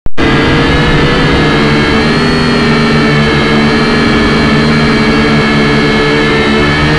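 Small quadcopter drone's motors and propellers whining loudly and steadily as it lifts off from the grass, heard close up through the drone's own camera microphone.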